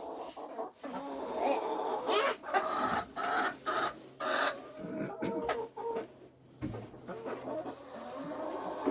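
Hens clucking in a coop, a string of short repeated calls with a few knocks and rustles.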